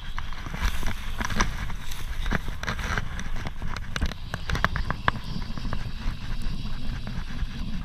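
Fly reel clicking irregularly as line is wound in on a hooked salmon, over a low rumble of clothing and handling against the camera.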